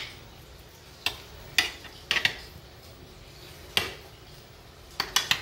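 A metal utensil clinking and tapping against a metal sheet pan while a binder is spread over racks of ribs: a handful of short, sharp clinks at irregular intervals, with a quick cluster near the end.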